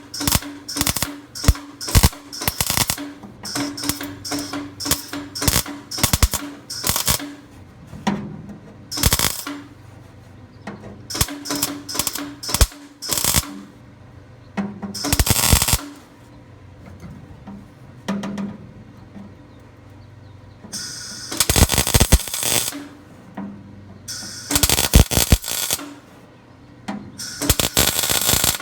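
Wire-feed welder laying a rapid string of short tack welds, each a brief crackling burst about half a second long, then a few longer welds of one to two seconds. It is filling in a sheet-metal patch where the thin old metal keeps blowing through.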